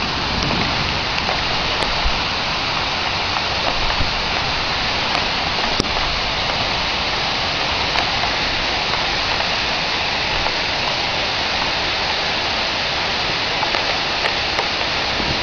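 Heavy rain falling steadily during a thunderstorm, a constant hiss with a few sharper drop ticks scattered through it.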